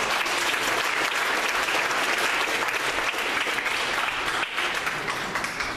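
A congregation applauding steadily, many hands clapping at once, dying away near the end.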